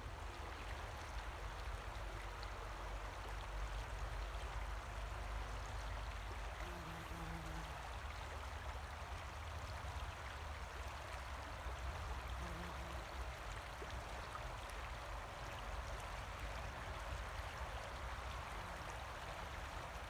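River water flowing steadily: a continuous, even rushing, with a steady low rumble underneath.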